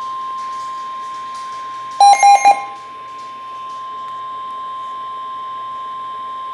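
EAS alert tone: one steady high single tone (the 1050 Hz weather radio warning alarm), with four quick, louder beeps about two seconds in.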